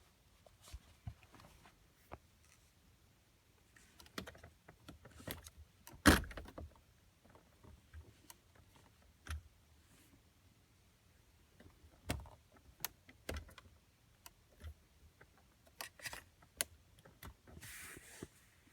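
Plastic trim tool and BMW gear shift trim cover being worked loose by hand: scattered clicks and knocks of plastic on plastic at uneven intervals, one much louder knock about six seconds in, and a brief rustle near the end.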